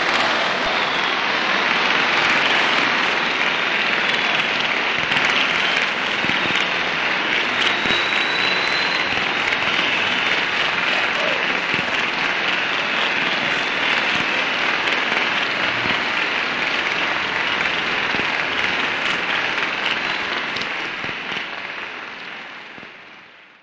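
Concert audience applauding, a dense steady clatter of many hands on an old 1938 concert recording; it fades out over the last few seconds.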